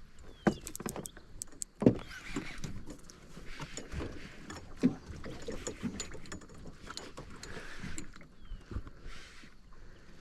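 Water splashing and sloshing around a small aluminium boat, with irregular sharp knocks and clicks against the hull; the loudest knock comes a little before two seconds in.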